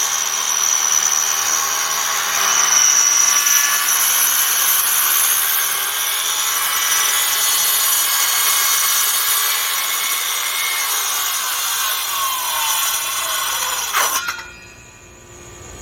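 Metabo HPT 7 1/4" corded circular saw with a 6,000 RPM motor ripping a wooden riser board, running steadily and loud for about fourteen seconds. Near the end the motor note falls and the sound drops off sharply, leaving the blade spinning down on its own, since the saw has no blade brake.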